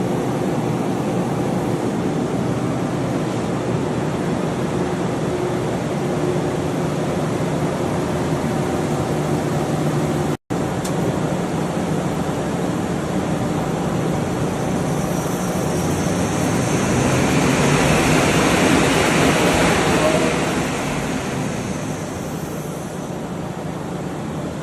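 A powered-up CNC lathe hums steadily with several steady tones. A hiss swells and fades between about 15 and 23 seconds in.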